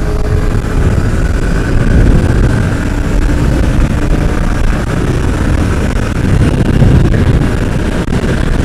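Motorcycle engine running steadily at cruising speed while the bike is ridden, mixed with a loud low wind rumble over the microphone.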